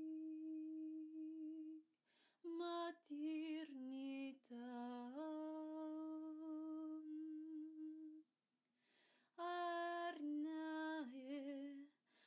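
A woman's voice humming long wordless held notes in light-language healing vocals. It steps between pitches, wavers in places, and stops for brief pauses, about two seconds in and again near eight seconds.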